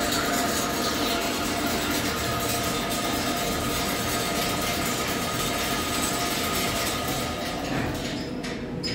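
Electric wire spring-coiling machine running with a steady mechanical clatter and a held high whine, easing off somewhat near the end.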